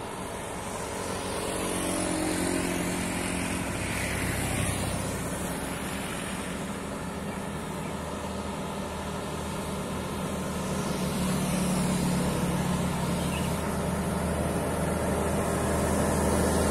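Heavy truck's diesel engine running under load as the truck approaches, its low drone growing louder. Small motorcycle engines pass by about two to five seconds in.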